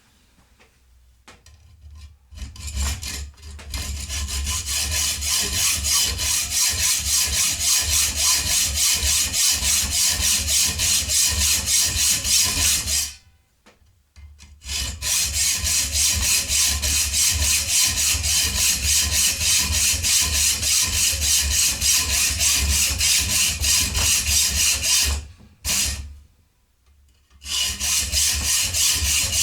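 Hacksaw cutting a metal threaded rod held in a vise: fast, even back-and-forth strokes, about three a second, starting a few seconds in and pausing twice briefly.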